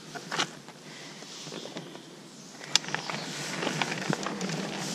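Mountain bike rolling over a dirt forest trail: tyre noise on the dirt with scattered clicks and knocks from the bike rattling over bumps. It gets louder about halfway through, with one sharp knock.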